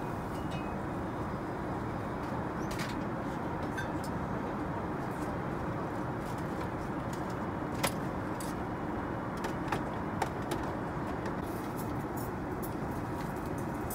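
Steady in-flight cabin noise of an Airbus A380, the even rush of airflow and engines heard from a seat, with a few light clicks from the service near the middle.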